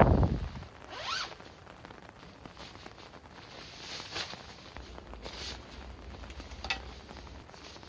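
A zipper being pulled in a few short strokes, with a rising zip about a second in and more scratchy zips and rustles later, over a quiet background.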